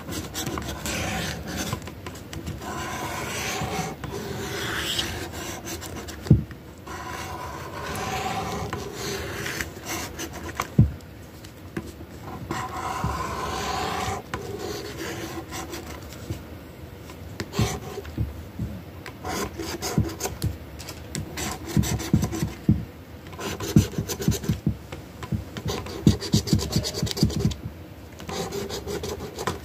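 Scratch-off lottery ticket being scratched, its coating rasped off in repeated back-and-forth strokes. In the second half the strokes turn into rapid, sharper short scrapes.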